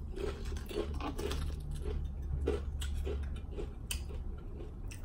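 Close-up chewing of tortilla chips with the mouth closed: soft, regular crunches about two or three a second, with a few light clicks as a glass dip bowl is handled, over a low steady hum.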